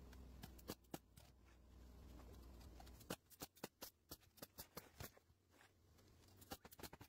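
Faint rustling and clicking of asphalt cap shingles being handled and laid on a shingled roof, with a faint low steady rumble that stops about three seconds in.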